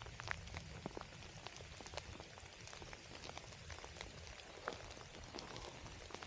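Light rain falling, faint, with scattered raindrops clicking at irregular intervals.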